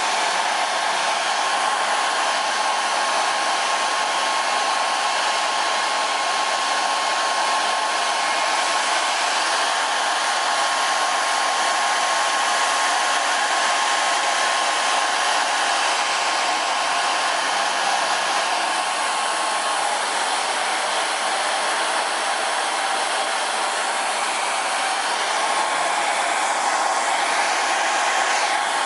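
Hand-held hair dryer blowing steadily, used to dry freshly pasted shoji paper. A faint whistle in its noise fades out about two-thirds of the way through.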